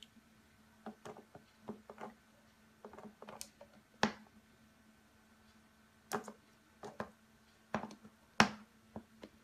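A cat's paws tapping and batting at the plastic mist nozzle of an ultrasonic humidifier: about a dozen light, irregular taps and clicks, the sharpest about four seconds in and near the end, over a faint steady hum.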